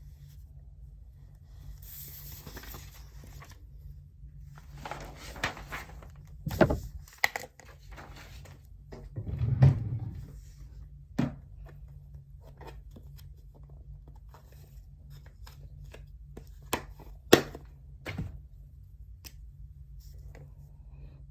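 Desk sounds of someone studying: scattered clicks and knocks, a few heavier thunks and a stretch of paper rustling, over a steady low hum.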